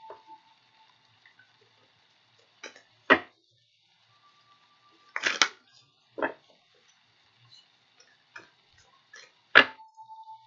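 A deck of oracle cards being handled: scattered sharp taps and clicks, about five louder knocks spread over several seconds. A faint thin high tone runs behind, and two brief steady tones come in near the middle and near the end.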